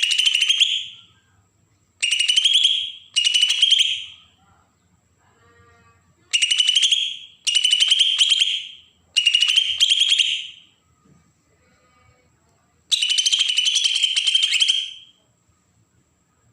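Green leafbird (cucak ijo) giving its harsh, rasping 'besetan' call: seven buzzy, rapidly pulsed bursts of one to two seconds each with short gaps, the last one the longest. It is a lure call meant to provoke young birds into answering.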